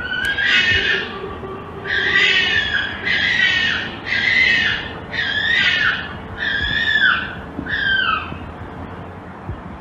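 Recording of a red fox calling: a series of about eight harsh, raspy yelping calls, each dropping in pitch at its end, repeated roughly once a second and fading toward the end.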